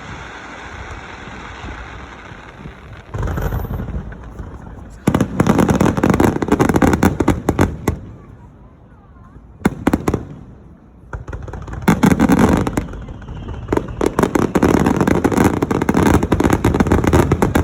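Aerial fireworks in a rapid-fire finale barrage: volleys of shells bursting in quick succession with crackling, in three loud clusters with short lulls between them, from about five seconds in, around ten seconds in, and again from about twelve seconds on.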